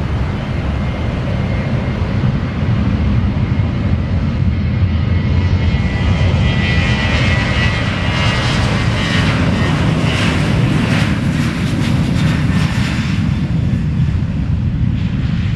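Airliner's jet engines at takeoff power passing close: a heavy rumble builds over several seconds, is loudest in the middle with a high whine on top, then eases a little.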